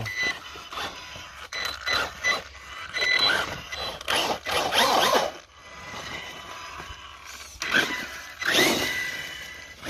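Axial Ryft RC rock bouncer driving in throttle bursts: its electric motor whines up and down while the tires scrabble and scrape over rocks and dirt.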